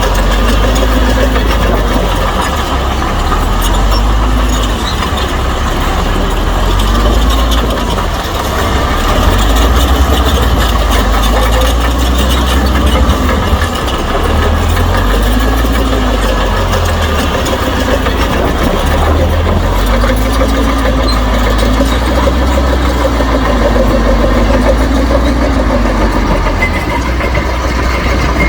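Shantui bulldozer's heavy diesel engine running continuously while pushing soil, with a deep rumble and a tone that rises and falls every couple of seconds as the load changes.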